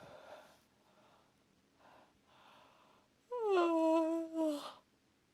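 A woman yawning aloud: a few soft breaths, then about three seconds in a loud voiced yawn whose pitch drops and then holds for about a second, ending in a breathy exhale.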